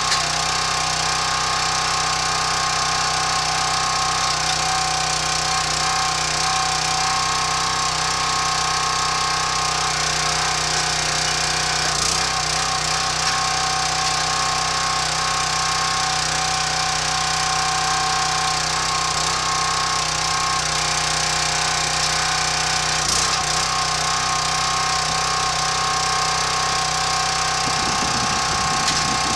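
Hydraulic log splitter's engine running steadily. Two brief metallic knocks come about twelve and twenty-three seconds in.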